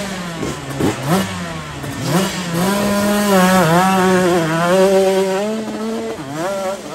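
125cc dirt bike engine blipped in a few sharp revs, then held at high revs from about two and a half seconds in as the bike runs up a steep dirt hillclimb, the pitch wavering with the throttle; the revs dip and pick up again briefly near the end.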